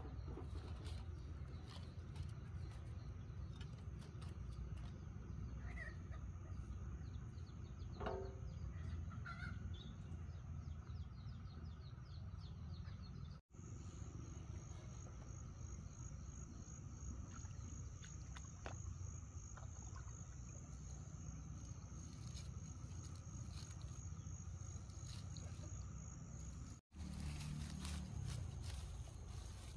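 Rural outdoor ambience: an insect's steady high-pitched trill, pulsing rapidly in the second half, with a few short bird chirps in the first half over a constant low rumble. The sound drops out sharply twice.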